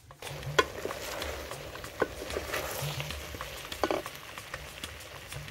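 Aluminium pot of bananas and goat intestines cooking over a wood fire with a steady sizzling hiss, while a wooden spoon stirs it and knocks sharply against the pot a few times.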